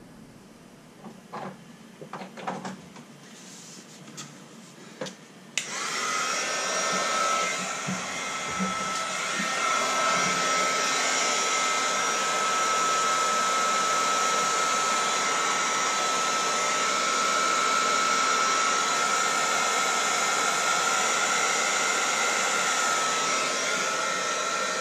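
Handheld electric heat gun switched on about five seconds in, then blowing steadily with a fixed high whine, shrinking heat-shrink tubing over crimped wire connections. Before it starts there are a few light clicks and knocks of handling.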